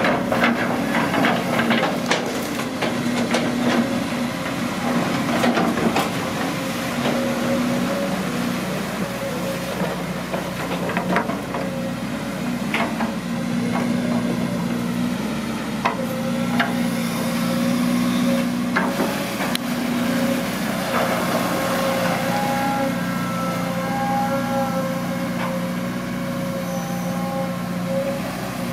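Caterpillar long-reach excavator's diesel engine running, a steady hum whose tone shifts now and then as it works. Scattered sharp knocks and clanks run through it.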